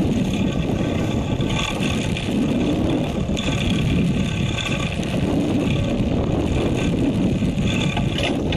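Fishing boat's engine running steadily, a continuous low rumble under the sound of wind and water.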